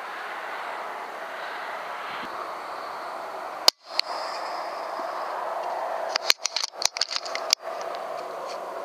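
Steady background hiss and hum, broken by a sharp click about three and a half seconds in where the sound briefly cuts out, then a quick run of sharp clicks with short dropouts between about six and seven and a half seconds.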